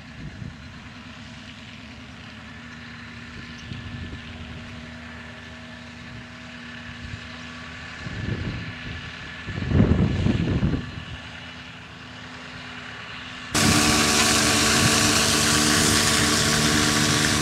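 Tractor engine running steadily at a distance, with gusts of wind on the microphone partway through. About thirteen seconds in it jumps to a loud, close drone of the tractor engine working a slurry tanker, with the hiss of slurry being sprayed.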